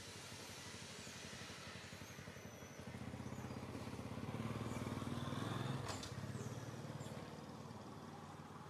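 A motor vehicle's engine droning, growing louder to a peak about five to six seconds in and then fading away. A single sharp click near six seconds.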